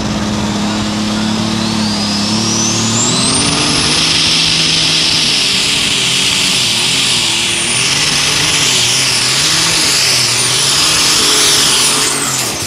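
Light super stock pulling tractor's turbocharged engine running at full throttle under load on a pull. The engine note rises two to three seconds in and then wavers as it pulls, and a high turbo whistle climbs and holds. Near the end the throttle comes off and the sound drops.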